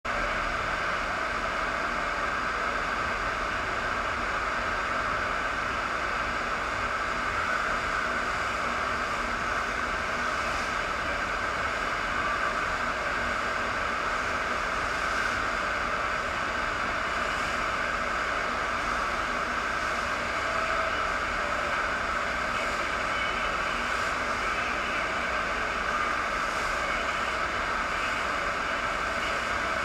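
Steady rush of water pouring over a FlowRider surf-wave machine, its pumped sheet of water running continuously up the ride surface.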